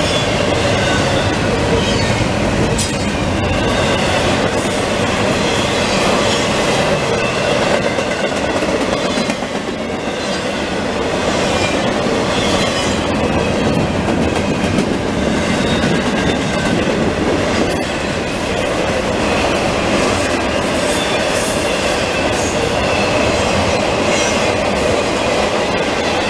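Intermodal freight train cars rolling past: a steady rumble of steel wheels on rail, with a high, steady ringing squeal from the wheels.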